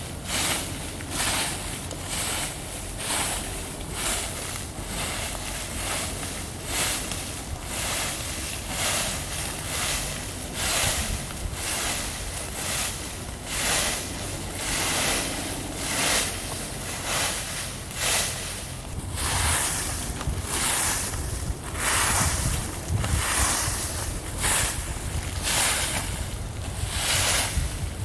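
Dry leaves and forest-floor litter being scraped and swept off the ground in regular rhythmic strokes, roughly one a second, to clear a bare patch for a campfire. Wind rumbles on the microphone underneath.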